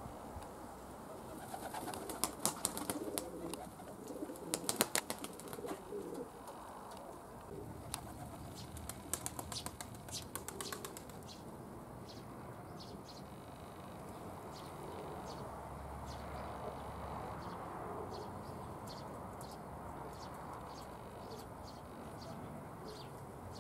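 Domestic pigeons cooing, with a few bursts of rapid clapping wing beats in the first half.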